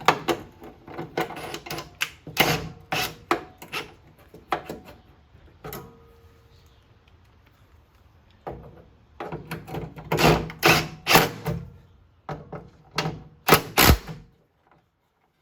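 Irregular metallic clicks and clunks of hand tools and latch hardware being worked on a car's hood latch, in bunches with a quieter gap in the middle, stopping abruptly near the end.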